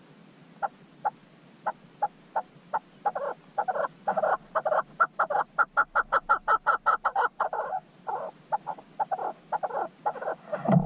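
An animal calling in a long series of short, sharp notes. They come singly at first, speed up into a rapid run around the middle, then slow and space out again.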